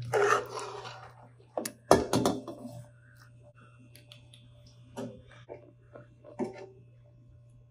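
Metal spoon scraping and knocking against steel cookware as thick curry is served into a steel bowl. A brief scrape comes first, then a cluster of sharp knocks about two seconds in, then a few lighter taps.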